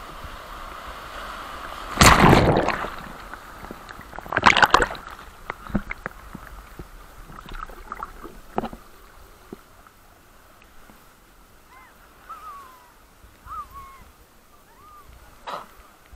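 Sea waves breaking and splashing, with two big crashes about two and four and a half seconds in, then smaller splashes and sloshing water that grow quieter.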